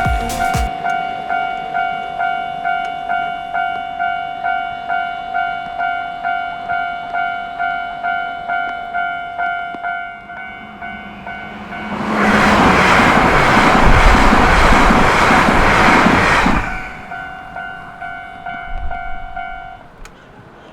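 Japanese level-crossing warning bell ringing about twice a second while a train on the Akita Shinkansen line approaches and passes. The train's rush starts about twelve seconds in, is the loudest sound, and lasts about four and a half seconds, after which the bell keeps ringing more faintly before stopping near the end.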